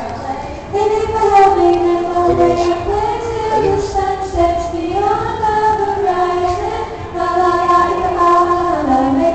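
Young voices singing a song live, with notes held for a second or more and gliding between pitches, with some music underneath.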